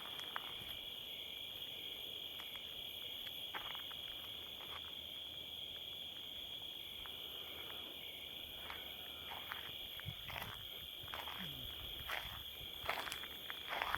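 Steady, high-pitched chorus of crickets at night, with a few scattered footsteps that come more often in the last few seconds.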